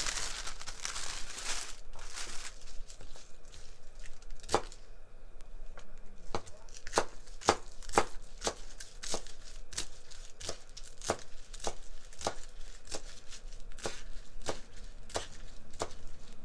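A plastic produce bag crinkling as spinach is pulled out, then a chef's knife chopping spinach on a cutting board: steady knocks of the blade on the board, about two a second.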